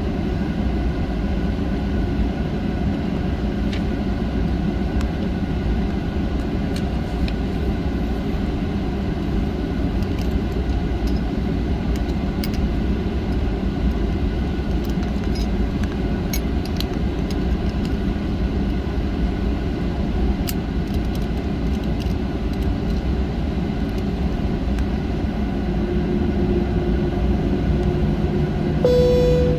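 Steady cabin noise of a Boeing 737-900 taxiing, heard from inside the cabin: the low rumble of its CFM56-7B engines at taxi power with the airframe's hum. Near the end a steady hum joins, and a brief higher tone sounds just before the end.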